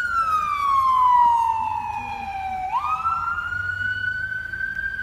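Emergency vehicle siren wailing. Its pitch falls slowly for nearly three seconds, jumps up quickly, then climbs slowly again.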